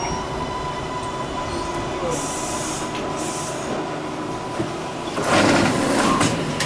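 R62A subway car coming to a stop at a station platform, with a steady whine throughout. Two short hisses of air come about two and three seconds in, then a louder rush of noise lasting about a second near the end.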